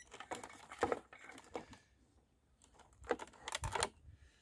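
A clamp meter and its test leads being handled: scattered light plastic clicks and rattles, with a quiet pause about two seconds in.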